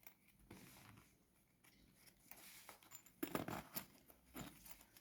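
Faint rustling and soft clicks of packaging and a storage case being handled and opened, with a brief louder cluster of knocks a little past the middle.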